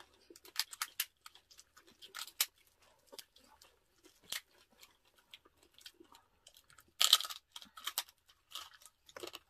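Close-up eating sounds: crunching and chewing of crispy roast meat and skin, with meat being torn apart by hand, in irregular crackles, the loudest crunch about seven seconds in.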